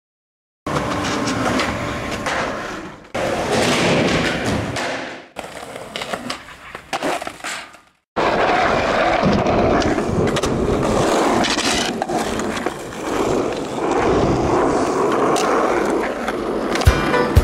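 Skateboard wheels rolling over a rough asphalt skatepark surface, with a few clacks of the board. The sound cuts out briefly about halfway through.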